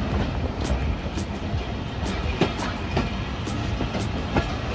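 Madhumita Express passenger train running on the track as it pulls out of the station and picks up speed: a steady rumble with scattered clicks of the wheels on the rails.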